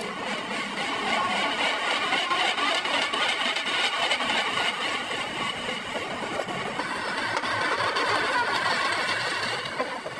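A motor-driven machine running steadily, with a high, even hum throughout.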